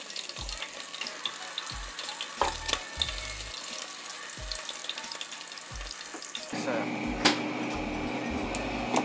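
Chicken pieces sizzling and crackling in an open air fryer basket, with metal tongs clicking against them and the basket as the pieces are turned. About two-thirds of the way through, the basket is pushed back into the Ninja air fryer with a sharp click and a steady fan hum starts.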